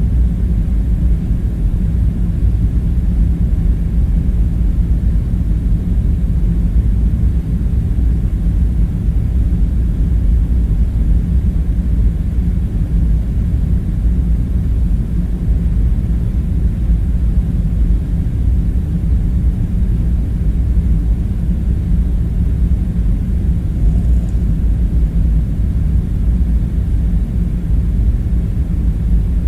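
Steady low rumbling drone with a faint hum in it: the background machinery bed of an underground bunker ambience. It stays even throughout, with no distinct kitchen sounds standing out.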